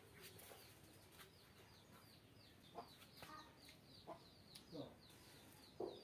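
Near-quiet yard ambience: a few soft, scattered clucks from chickens, over a faint high chirp that repeats about three times a second.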